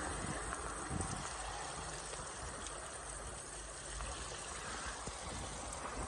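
Water of a frozen waterfall running steadily under its icicles and ice crust, a continuous even rush.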